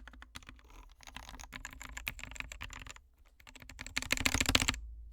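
Typing on an SK61 60% keyboard with lubed Gateron Optical Black linear switches and pudding keycaps: a quick, steady stream of keystrokes, a brief pause about three seconds in, then a louder, faster flurry of keys that stops suddenly near the end.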